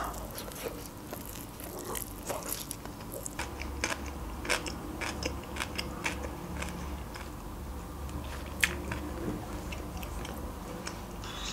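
A person chewing a mouthful of salmon sushi roll close to a clip-on microphone: scattered soft wet clicks and smacks of the mouth as she chews.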